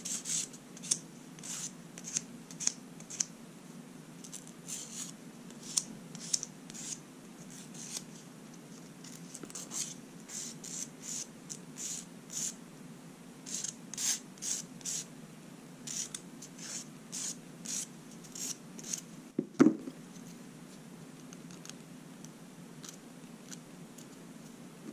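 Short, irregular strokes of a nail file rubbing across natural fingernails, a few a second, ending with one sharp knock about twenty seconds in. A steady low hum from the recording runs underneath.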